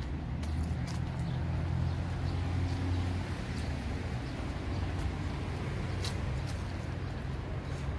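Steady low rumble of distant road traffic, a little louder in the first few seconds, with faint light clicks scattered through.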